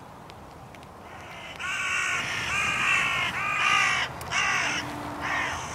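Hooded crow cawing: a series of about seven repeated caws, starting about one and a half seconds in.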